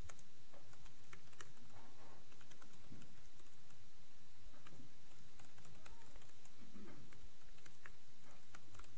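Typing on a computer keyboard: light, irregular key clicks over a steady background hiss.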